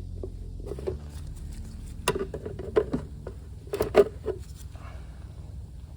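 Hard plastic clicks and knocks as a Freightliner Cascadia hood mirror is slid onto its rebuilt mount and locked in place, with the sharpest snaps about two and four seconds in, over a low steady hum.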